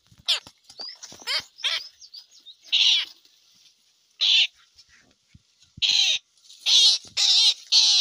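Indian roller giving harsh, rasping screeches, one every second or so at first, then several in quick succession near the end.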